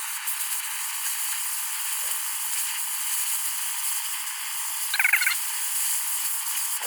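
Handheld gas torch burning with a steady hiss as it heats a bolt, with a brief rattle about five seconds in.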